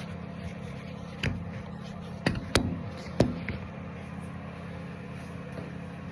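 Four sharp knocks in about two seconds, the loudest near the middle, as wall anchors for a shower door rail are tapped into their holes. The anchors are not seating all the way in. A steady low hum runs underneath.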